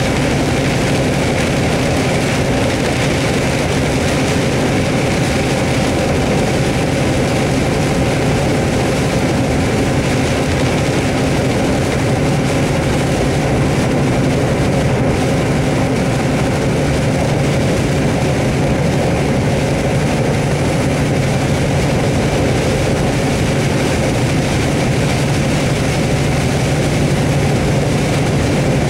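Steady drone heard inside a vehicle driving on a wet highway in hard rain: engine and tyre noise mixed with rain hitting the body.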